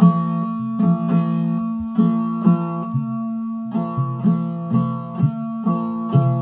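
Instrumental passage of a bhajan: plucked strings struck about twice a second over steady sustained drone notes, with no singing.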